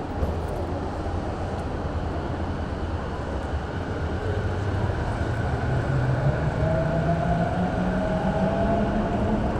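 A steady low rumble of a vehicle, with a motor whine that rises steadily in pitch from about halfway through as the vehicle picks up speed.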